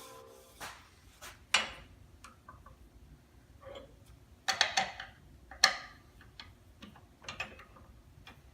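Scattered sharp clicks and knocks at irregular intervals, like hard objects being set down or handled. The loudest are about a second and a half in and near the middle, with a quick cluster just before the middle one.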